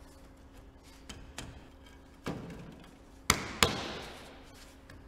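Ridge tiles being set down and butted tight together over a flexible joining gasket: a few light ticks, then sharp knocks about two and three seconds in, the last one trailing off over about a second.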